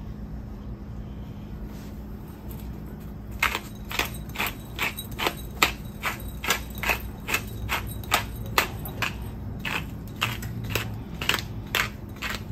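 Hand-twisted pepper mill grinding peppercorns: a run of quick crunching clicks, about three a second, starting about three and a half seconds in.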